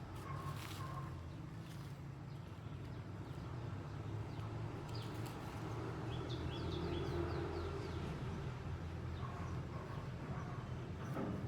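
Steady low rumble with a short run of quick bird chirps about six seconds in, and a few faint clicks.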